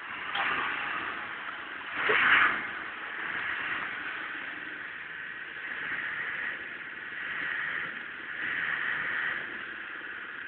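Off-road 4x4 driving through deep water: the engine runs under load with swells of noise, the loudest about two seconds in.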